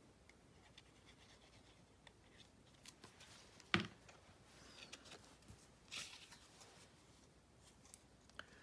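Faint rustling and handling of cardstock and paper pieces, with one sharp tap about a third of the way in and a smaller one near two-thirds.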